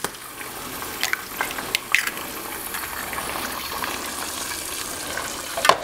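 Eggs frying in hot browned butter in a skillet: a steady crackling sizzle. A few light clicks come in the first two seconds, and a sharper tap sounds just before the end.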